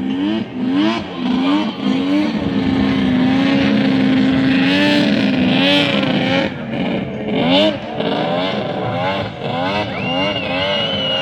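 Snowmobile engine revving, its pitch rising and falling over and over with the throttle. A steady high tone joins near the end.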